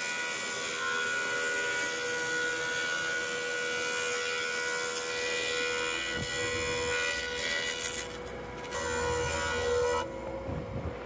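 Thickness planer running and planing a rough-sawn sugar pine board, a steady machine hum with the hiss of the cutterhead shaving the wood. Near the end the high hiss drops off while the hum carries on.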